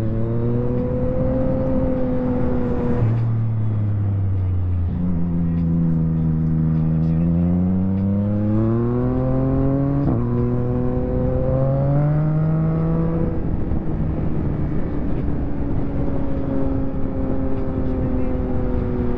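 Yamaha MT-09 SP's three-cylinder engine through a full Akrapovic race exhaust, revving up and down under riding. The pitch climbs and falls with the throttle, with abrupt gear-change steps about three seconds in and again around ten seconds.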